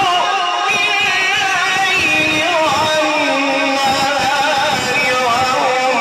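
A man's voice reciting the Quran in the drawn-out melodic mujawwad style: one long phrase of held notes that waver and glide up and down in pitch.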